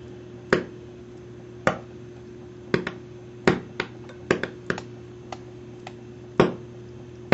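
Little sharp pops from hydrogen-oxygen bubbles made by a homemade water-electrolysis cell, exploding as they break the water surface into a lighter flame. About a dozen pops come at irregular intervals, some in quick pairs, over a faint steady hum.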